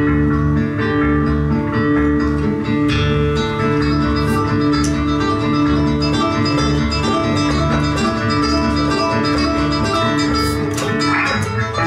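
Live instrumental guitar duet: an acoustic guitar picking a melody over long held electric guitar notes.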